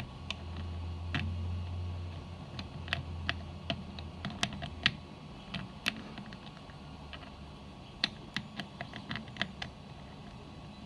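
Irregular light clicks and taps of small parts being handled as a recoil pad adjuster on a Soft Touch recoil stock is slid aside to reach the adjustment screw. A low hum sounds under the clicks for about the first two seconds.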